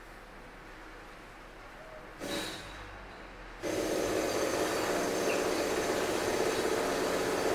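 Construction machinery: a short burst of noise about two seconds in, then a much louder steady mechanical noise with a hum of several steady tones starts suddenly past the middle and keeps going.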